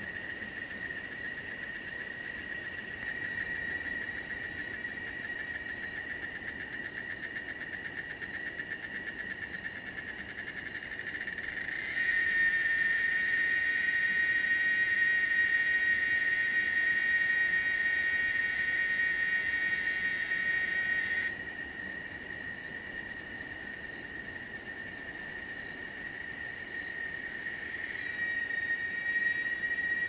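Insect chorus: a steady shrill drone with overtones under a continuous high hiss. It grows abruptly louder about twelve seconds in and falls back about nine seconds later.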